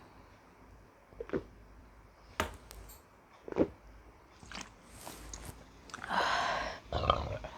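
Close-up mouth sounds of a woman drinking cola: a few sharp clicks about a second apart, then a louder, longer noisy gulping sound about six seconds in and a shorter one just after.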